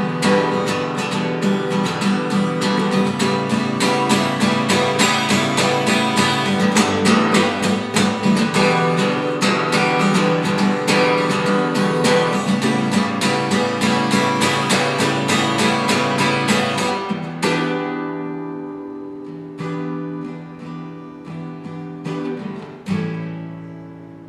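Acoustic guitar strummed quickly and steadily, with no singing. About seventeen seconds in it slows to a few ringing chords, the last struck near the end and left to fade out.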